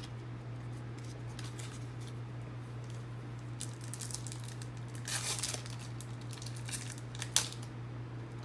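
Trading-card pack wrapper being torn and crinkled open by hand, in short irregular rustles, the longest about five seconds in and a sharp crackle about seven seconds in, over a steady low hum.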